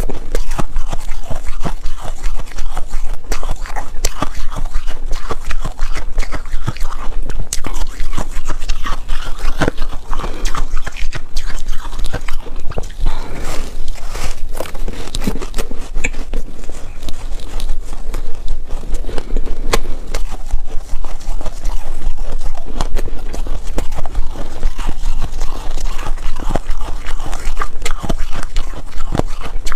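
Close-miked biting and chewing of frozen foam ice: many crisp crunches and cracks in quick succession.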